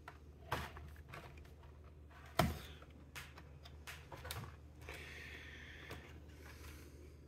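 Plastic clicks and light knocks as hands press and handle a laptop's refitted bottom cover, seating its clips. The sharpest knock comes about two and a half seconds in, and a brief rubbing sound follows near the five-second mark.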